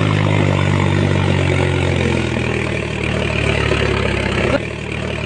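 Tractor engine running steadily with a low, even note, dropping a little in level about four and a half seconds in.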